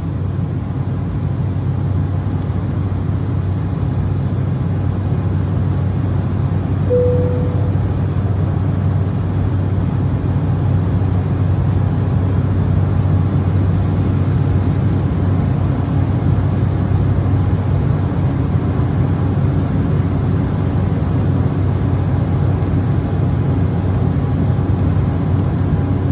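Steady cabin drone inside an Embraer E190 climbing after takeoff: its GE CF34-10E turbofan engines and the airflow over the fuselage, with a strong low hum. A single short tone sounds about seven seconds in.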